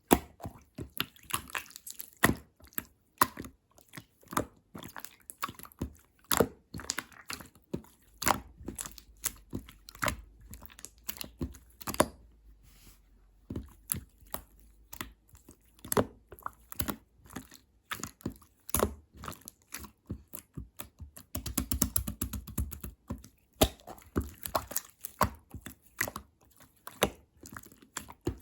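Clear transparent slime being squeezed, pressed and stretched by hand, making many sharp, irregular clicks and pops with squishy crackling in between.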